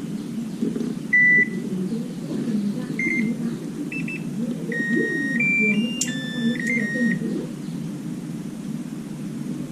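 Electronic beeps from a device: one loud beep about a second in, a few short ones, then a run of tones at changing pitches. A steady low hum runs underneath.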